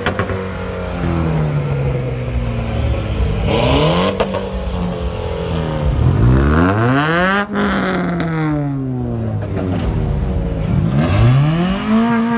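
Modified car engines revving hard three times, each rev climbing quickly and falling away slowly. The last is held high near the end. Some revs end with a sharp crack at their peak.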